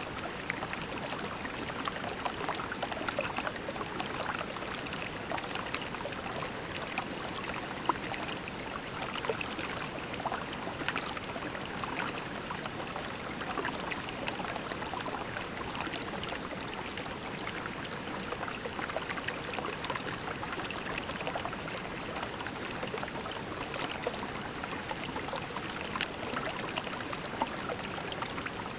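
Shallow creek water flowing over pebbles, a steady babbling and trickling with many small splashes.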